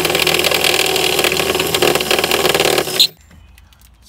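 Cordless drill running with its bit grinding into a pop rivet in a car's steel door frame, drilling the rivet out. It stops abruptly about three seconds in.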